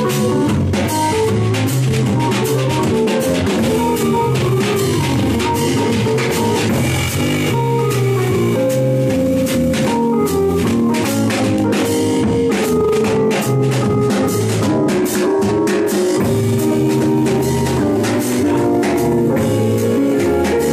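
Live band playing: a drum kit keeps a steady beat under electric guitar and sustained pitched chords.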